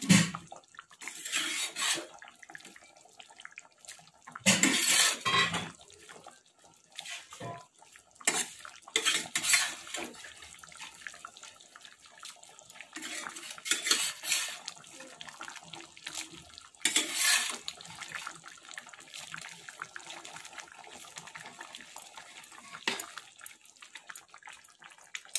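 Prawn curry being stirred in a metal kadai: wet sloshing and the spatula scraping the pan in bursts of about a second every few seconds, with light clicks between.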